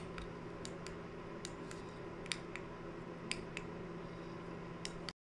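Room tone: a steady low hum with a dozen or so faint, irregular small clicks scattered through it, cutting off abruptly into silence near the end.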